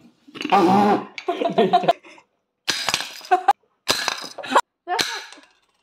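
A young person's short vocal outbursts: about five bursts with brief silences between them.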